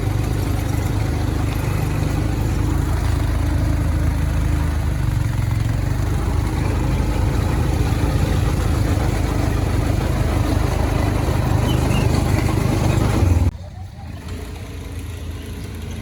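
Quad bike engine running steadily with a dense low rumble. It cuts off suddenly about 13 seconds in, leaving a quieter steady background.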